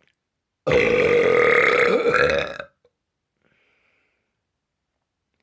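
One long, loud deliberate burp lasting about two seconds, starting abruptly less than a second in.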